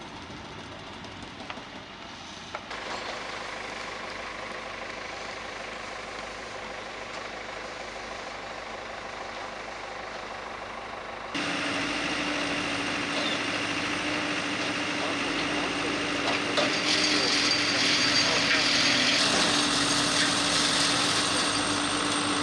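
Heavy machinery's engine running steadily, fainter in the first half and much louder from about halfway in, where a hum holds one steady pitch.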